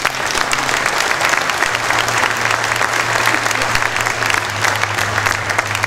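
Audience applauding: many hands clapping in a dense, even patter that fills out within the first second and carries on.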